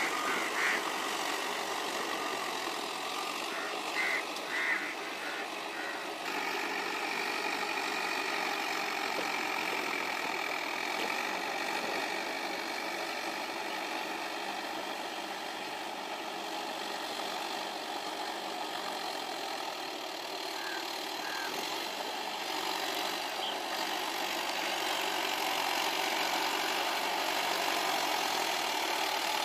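Tractor diesel engine running steadily under load while it drives a rotavator through a flooded paddy field.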